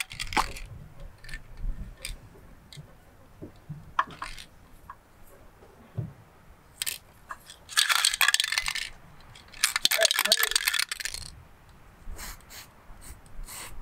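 Aerosol spray paint can spraying in two hissing bursts, about a second and then a second and a half long, some eight seconds in, with scattered light clicks and knocks before and after.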